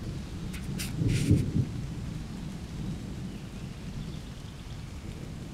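Thunder from an approaching storm: a low rumble that swells about a second in and then rolls on more quietly.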